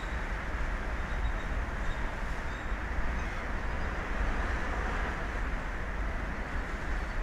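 Steady wind noise on an open-air microphone over the sea: a continuous low rumble and rushing hiss with no distinct events.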